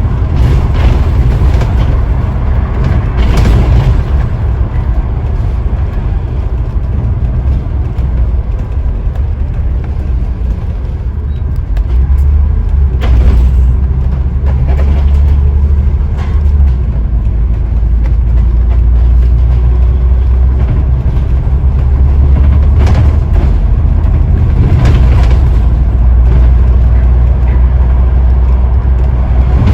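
Scania OmniDekka double-decker bus heard from on board while under way: a steady low engine rumble whose note changes several times as the bus speeds up and slows, with occasional knocks and rattles from the body.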